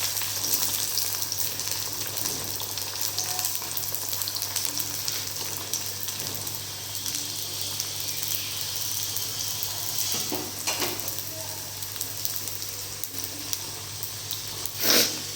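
Stuffed dal puri deep-frying in hot oil: a steady, high sizzle that is loudest at first and settles a little quieter. A few short knocks near the end, the last one the loudest.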